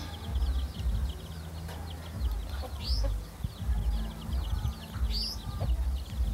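Chicks peeping in a steady stream of quick, high calls, with a couple of louder rising cheeps and a mother hen's low clucks, over a pulsing low rumble.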